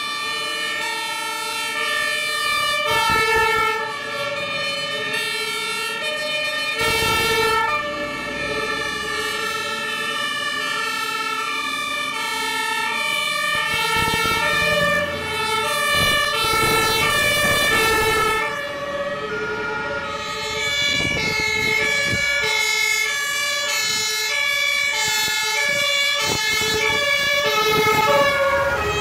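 German two-tone fire truck sirens (Martinshorn) sounding, several at once at different pitches and out of step, each stepping back and forth between a high and a low note. Truck engines can be heard passing under them.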